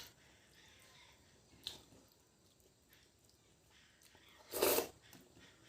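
Quiet eating sounds from a person eating mutton curry and rice: soft mouth noises, a small click just under two seconds in, and one short, louder mouth or nose sound about four and a half seconds in.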